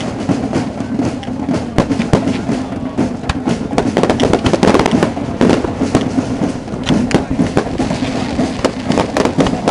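Firework display going off: a dense, continuous barrage of sharp bangs and crackles, many each second.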